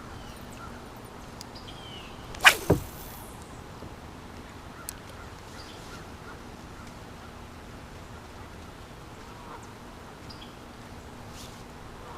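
Quiet river-bank background with a few faint bird chirps. About two and a half seconds in, a quick double swish of a fly rod and line cutting through the air on a cast.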